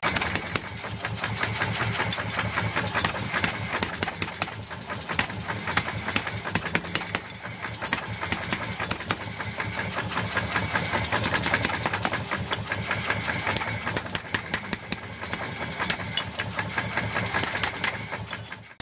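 Mechanical power hammer pounding a red-hot steel axe blank in a rapid, steady run of blows, its motor running underneath.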